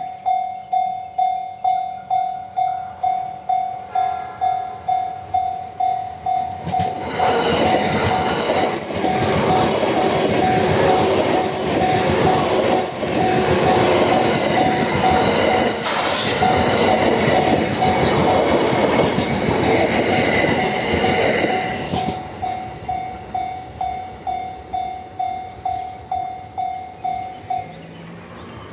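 Japanese level-crossing warning bell ringing steadily, about three strokes every two seconds, while a JR East E657 series electric limited express passes through the crossing at speed for about fifteen seconds, its rushing wheel and air noise covering the bell. The bell stops shortly before the end.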